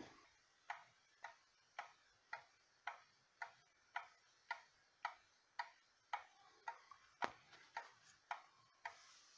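Mechanical pendulum movement of a 1987 Ethan Allen skeleton wall clock ticking faintly and evenly, a little under two ticks a second, as its escapement rocks back and forth.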